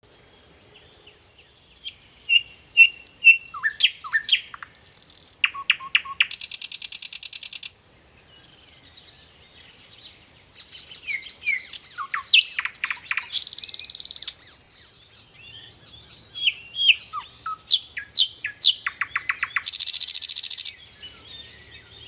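Common nightingale singing in three loud phrases separated by short pauses. Each phrase is made of sharp whistled notes and fast runs of repeated notes, and ends in a dense buzzing rattle.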